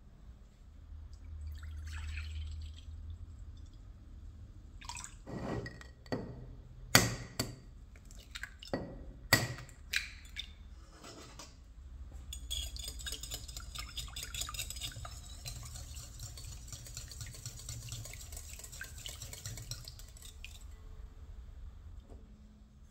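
Milk being poured into a glass bowl, then several sharp knocks of eggs cracked against the rim and dropped in, the loudest sounds. After that comes about eight seconds of fast, continuous clinking as a wire whisk beats the milk and eggs against the glass bowl.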